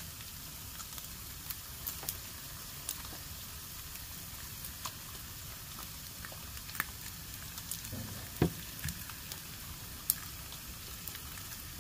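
Food frying on a hot camp grill: a steady sizzle with scattered small pops and crackles. A louder knock comes about eight and a half seconds in.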